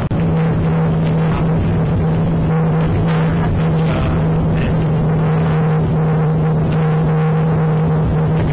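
Steady cabin drone of a Cessna Citation CJ3 business jet in flight: the whine of its twin Williams FJ44-3A turbofans and rushing airflow, with a constant low hum running through it.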